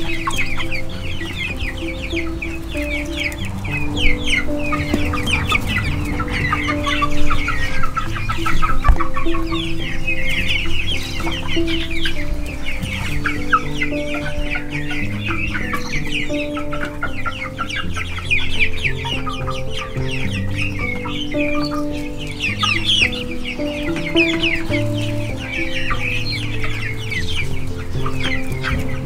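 A flock of young chickens peeping and clucking without a break, many quick high calls overlapping, over background music with slow held chords.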